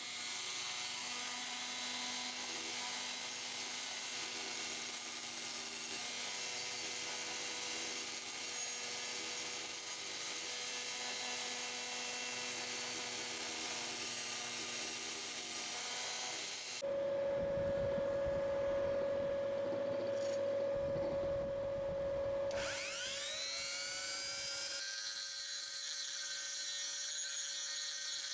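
Fixtec electric rotary tool running at high speed, its sanding drum grinding rust off a steel sickle blade with a steady high whine. About two-thirds of the way through the sound changes to a steadier hum, and a few seconds later a whine rises quickly and levels off as the tool spins up again.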